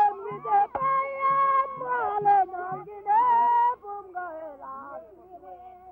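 Singing voices: held notes that bend in pitch, over a steady low beat about two to three times a second that stops about halfway through.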